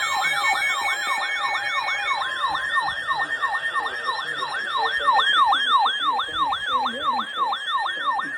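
Electronic siren on a fast yelp, its pitch sweeping up and down about three times a second, over a steady high tone.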